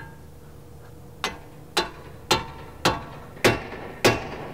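Heavy hammer striking a pickle fork (tie rod separator) driven between the outer ball joint and the steering knuckle to pop the joint loose: six sharp metallic blows a little over half a second apart, each with a short ring, getting slightly louder.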